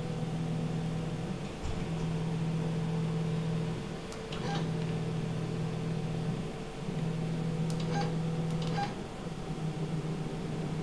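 Drive motors of a portable CNC plasma cutting machine moving the carriage and gantry through a test program, a steady hum that stops and restarts between moves, over a constant higher tone. A few sharp clicks are heard along the way.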